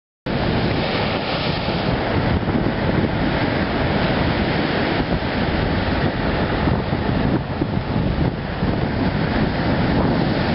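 Storm surf breaking against a rocky shore, with strong wind buffeting the microphone. It starts abruptly about a quarter second in and runs on as a loud, churning rush.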